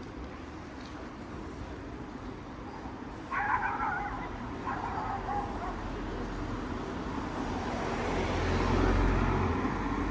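Traffic on a narrow village street: a car coming up close, its engine and tyre rumble swelling to its loudest about a second before the end. About three seconds in there are two short, higher-pitched sounds a second apart.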